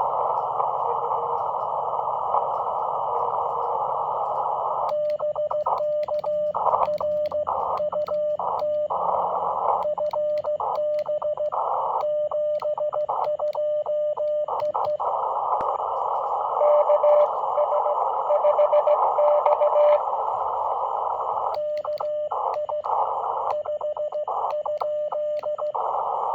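Shortwave transceiver audio: band hiss through a narrow CW filter, with Morse code sent as a keyed tone near 600 Hz in two long stretches. The hiss cuts in and out between the keyed characters. Between the two stretches, a weaker Morse signal is heard within the noise.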